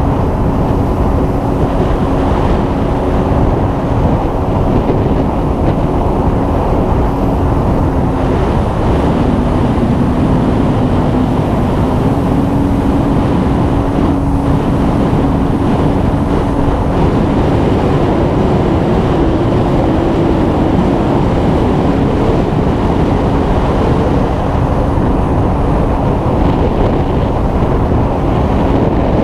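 ATV engine running steadily while riding, under heavy wind rumble on the microphone. Its pitch dips about eight seconds in, then rises again and wavers as the throttle changes.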